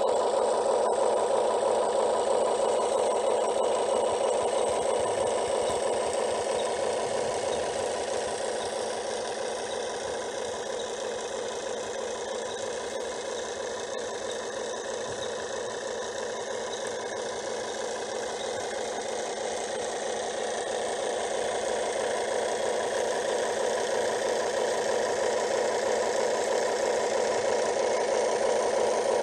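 Simulated diesel engine idling from the Top Race TR-211M remote-control excavator's electronic sound module, played through its small speaker. The sound is steady and unbroken.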